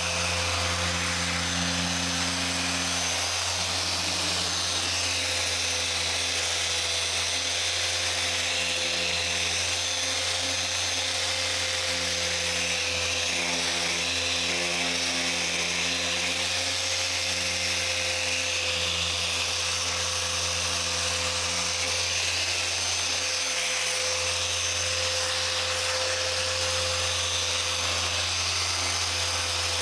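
Dual-action car polisher running steadily while buffing out swirls in the paint of a panel.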